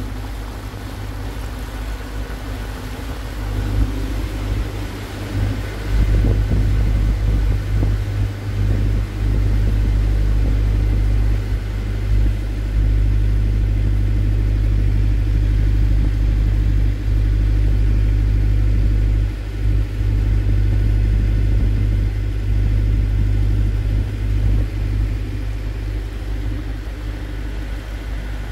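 Water taxi's motor running, a steady low rumble that wavers in loudness as the boat moves along the river.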